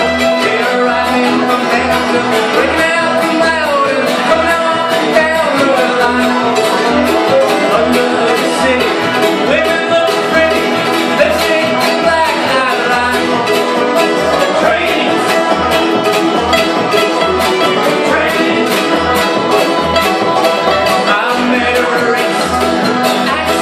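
Bluegrass band playing a fast tune live: fiddle, five-string banjo, mandolin and acoustic guitar over an upright bass marking a steady beat.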